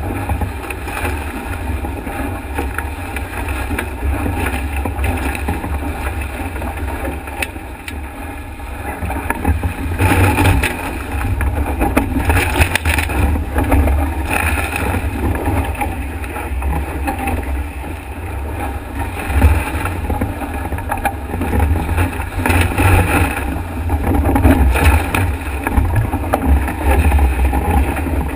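Wind buffeting the microphone of a camera mounted on a Nacra 5.8 catamaran, over water rushing and spraying past the hull at speed. The rushing swells in louder surges several times.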